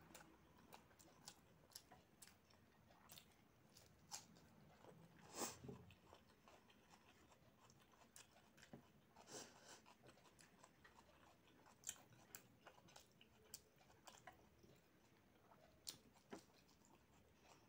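Faint close-miked chewing of rice and chicken curry eaten by hand, with soft wet mouth clicks and smacks scattered irregularly through; one louder smack comes about five and a half seconds in.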